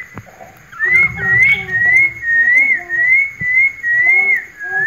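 Caged pet birds calling: a run of short whistled notes, each rising then falling, about two a second, starting about a second in. Weaker lower notes sound beneath them.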